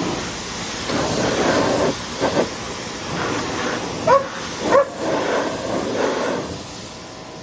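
Pressure washer jet spraying water onto a ladder, a steady hiss. A dog barks twice, about four and five seconds in.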